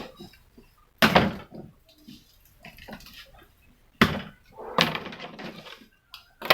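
A cardboard shipping box being opened and handled, with two sudden loud scraping noises, about a second in and about four seconds in, and rustling between.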